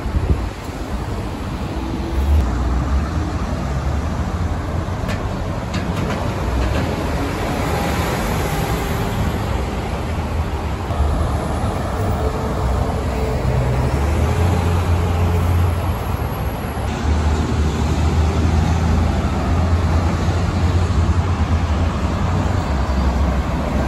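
Buses and traffic running close by: a steady low engine rumble that swells and eases, with a few light clicks about five seconds in.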